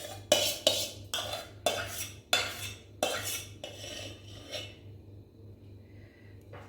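A spoon clinking and scraping against a bowl in quick, uneven strokes, about a dozen in the first four and a half seconds, then going quiet. A steady low hum runs underneath.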